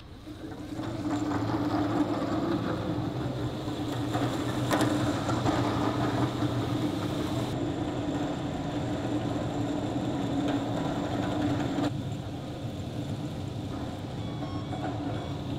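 Several Soosung electric pallet trucks driving across a concrete floor together: a steady motor hum and rumble that builds about a second in and eases off about twelve seconds in.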